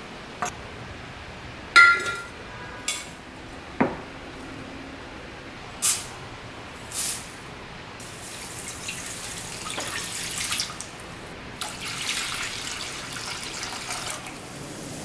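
A few sharp clinks and knocks of kitchen things, one ringing briefly like glass, then liquid poured into an aluminium saucepan: apple cider vinegar, then water, splashing onto pickling spice for a pickle brine, through the second half.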